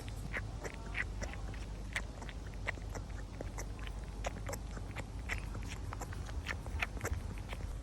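Baby wombat suckling milk from a bottle: irregular wet clicks and smacks several times a second, with hiccups from gulping the milk too quickly. One brief squeak about a second in.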